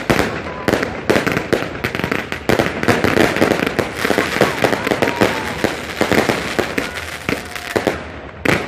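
Fireworks barrage at close range: mortars firing and aerial shells bursting in rapid succession, many sharp bangs and crackles a second, thinning briefly near the end before more bangs.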